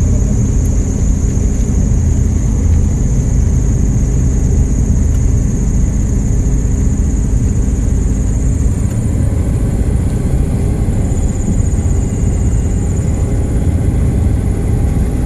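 Inside the cockpit of a Diamond DA40 TDI single-engine turbo-diesel light aircraft on short final: steady low engine and propeller drone. A thin high whine runs over it and shifts in pitch a couple of times in the second half.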